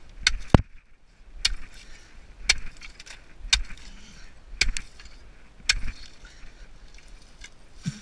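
A hand tool chopping into ice packed in sawdust, with sharp strikes about once a second and a short pause near the end.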